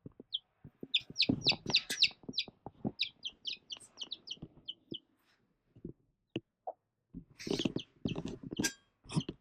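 Olive egger baby chicks peeping, a quick run of short high peeps in the first half that thins out to a few. Soft scratching and tapping sounds throughout, with a louder rustle near the end.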